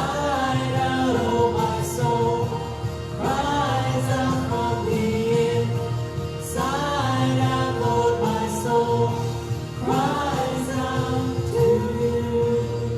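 Worship song: singing in long, held phrases that start about every three seconds, over a steady sustained accompaniment.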